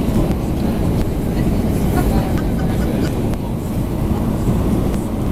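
Steady, loud cabin rumble of an Airbus A320-214 airliner, from its engines and the airflow over the fuselage, heard from inside the passenger cabin.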